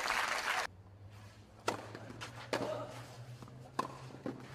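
Crowd applause that cuts off abruptly, followed by a tennis ball being struck with rackets and bouncing on the clay court: four sharp pops about a second apart, over a low steady hum.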